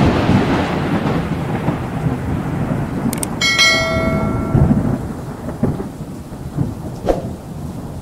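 Thunderclap sound effect: a sudden loud crash rolling on into a long rumble with a rain-like hiss, slowly fading. About three seconds in, a click and a short notification-bell chime ring out for about a second, and another click comes near the end.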